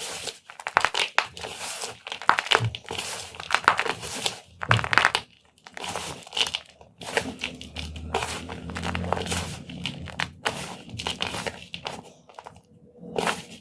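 Blocks of yellow gym chalk being crushed and crumbled, a dense run of irregular crunches and crackles with a short pause about five seconds in.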